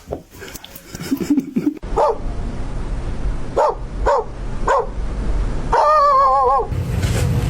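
A dog barking: four short yips that drop in pitch, then a longer wavering cry about six seconds in.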